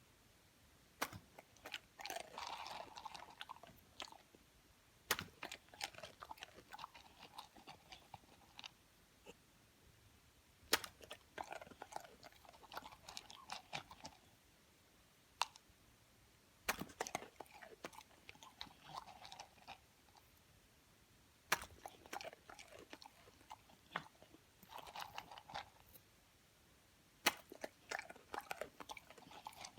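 A beagle catching tossed treats and chewing them, about six times over: each round opens with a sharp snap and is followed by a few seconds of crunchy chewing.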